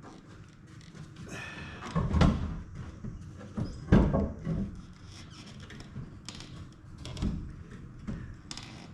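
Irregular clunks, knocks and scraping as a heavy pickup front bumper is hoisted onto the truck and shifted to line up with its mounting brackets; the loudest thump comes about four seconds in.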